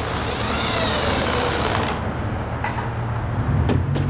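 Corded power drill running under load into a pressure-treated wooden beam for about two seconds, its pitch wavering as it bites, then stopping. A sharp knock comes near the end.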